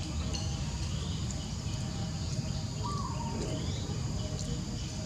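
Forest ambience: a steady high insect drone with a few short bird chirps over a steady low rumble.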